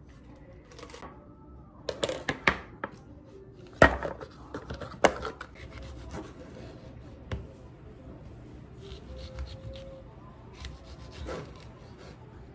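Sharp clicks and knocks on a wooden cutting board, loudest about four and five seconds in, then a knife slicing through a tomato on the board in soft rubbing strokes.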